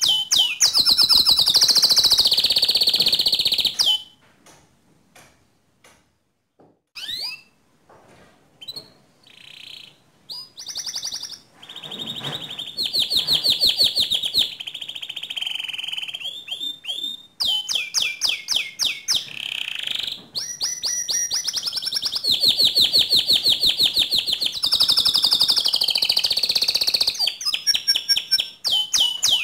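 White domestic canary singing in long, fast trills. The song breaks off about four seconds in, leaving a few seconds of short scattered notes, then resumes and runs almost without pause.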